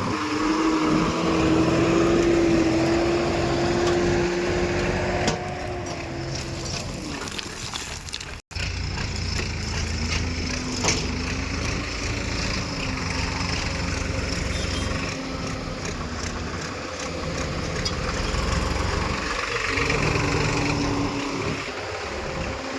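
Diesel engine of heavy earthmoving machinery running, its pitch shifting now and then. The sound drops out briefly about eight seconds in.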